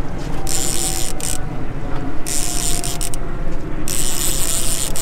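Conventional fishing reel being cranked against a fighting striped bass, its gears whirring and ratcheting in three spells with short pauses between, the rhythm of pumping the rod and reeling down.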